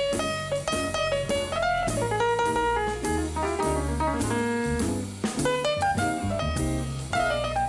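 Small big-band jazz from 1966: a grand piano playing a solo line, with double bass notes and a drum kit keeping time underneath.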